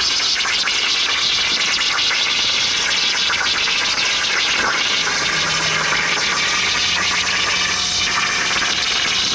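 Plasma cutter cutting steel plate: a loud, steady, crackly hiss of the arc and air jet, with a faint low hum joining about five seconds in.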